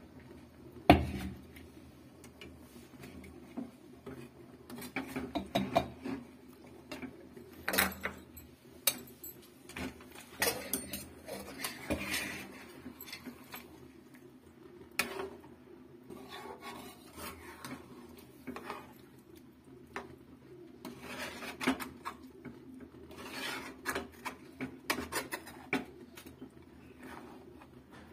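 A flat spatula scraping and knocking against a kadai as chicken in a thick sauce is stirred: irregular scrapes and clinks, with one sharp knock about a second in. A steady low hum sits underneath.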